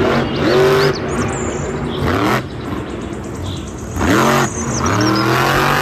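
Engine revving in several rising surges, a sound that goes with a monster truck.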